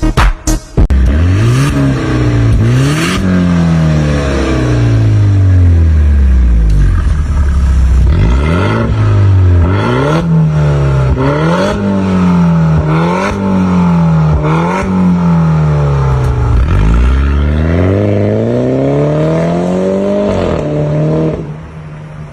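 BMW 530i G30's turbocharged four-cylinder engine heard through an aftermarket stainless-steel valved catback exhaust, its revs climbing and falling again and again, with several quick up-and-down swings and a longer climb. Near the end the sound drops abruptly to a quieter steady drone.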